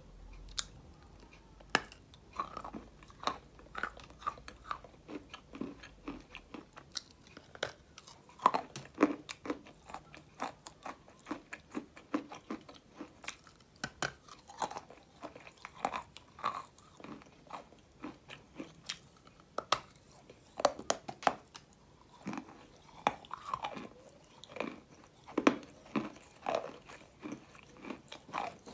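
Dry white clay being bitten and chewed: crisp, irregular crunches and snaps, several a second in uneven clusters.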